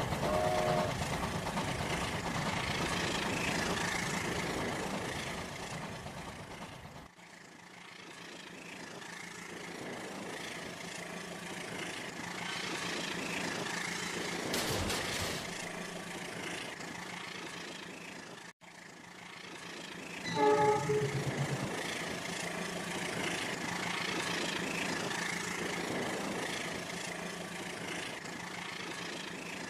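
Rail King battery-powered toy train running on its plastic track: a steady motor hum and wheel rattle. About two-thirds of the way through there is a short electronic horn sound, the loudest moment.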